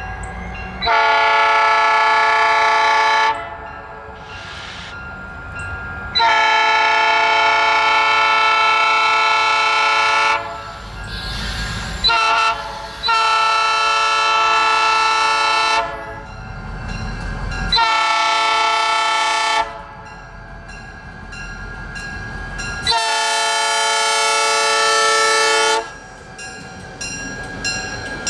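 New-cast Nathan P3 three-chime locomotive horn sounding six blasts, mostly long, with one short one about twelve seconds in. A low rumble fills the gaps between the blasts.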